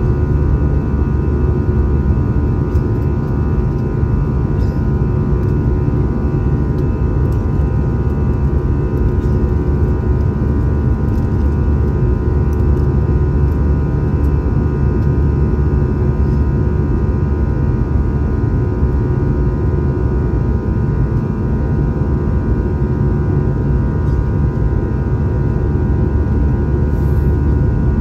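Airbus A320-200 cabin noise in flight, heard from a window seat by the wing: the jet engines and airflow make a steady low roar with a few steady higher tones over it.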